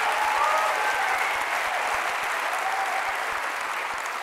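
Large audience applauding, the clapping slowly fading.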